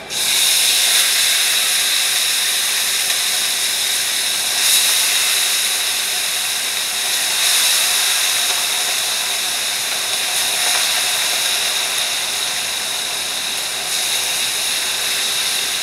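Seasoned chicken pieces for brown stew chicken sizzling loudly as they go into a hot pot, the hiss starting suddenly as the first pieces hit it, swelling briefly a couple of times as more go in, then easing a little.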